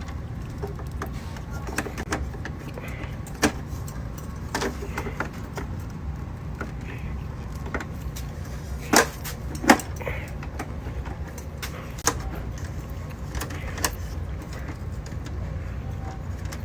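Scattered metallic clicks and knocks of hand tools and circuit breakers being worked in an electrical panel, two sharper snaps close together about nine seconds in, over a steady low rumble.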